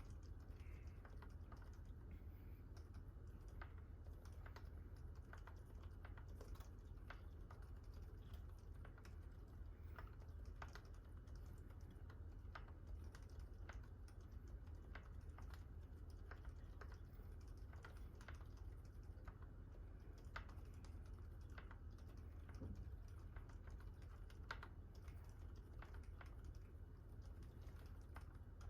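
Faint typing on a GMMK Pro mechanical keyboard with a brass plate and fully lubed Gazzew Boba U4 silent tactile switches: soft, muted keystrokes at an irregular pace, a few a second. A steady low hum lies beneath.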